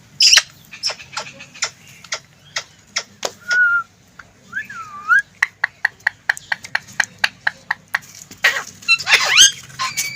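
Green ring-necked parakeet vocalising: scattered sharp clicks, a short steady whistle and a dipping whistle, then a quick run of clicks and loud harsh calls near the end.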